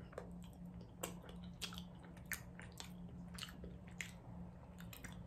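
A person chewing a big bite of a crunchy snack close to the microphone: faint, irregular crunches and wet mouth clicks, over a faint steady hum.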